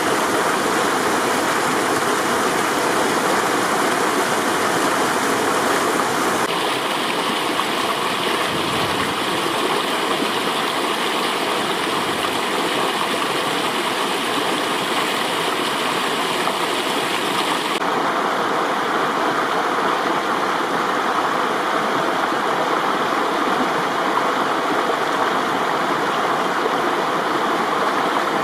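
Spring-fed stream rushing and splashing steadily down a hillside. The character of the rush changes abruptly twice, about six seconds in and near eighteen seconds.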